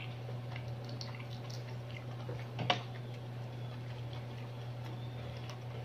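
Close-up eating sounds: sparse small clicks and ticks of fingers picking crab meat from the shell and eating rice by hand, with faint chewing, and one sharper click about two and a half seconds in. A steady low hum lies under it all.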